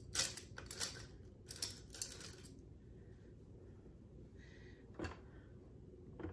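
Faint clicks and light taps of small makeup items and a brush being handled and set down on a table: a cluster in the first two and a half seconds and a single click about five seconds in, over quiet room tone.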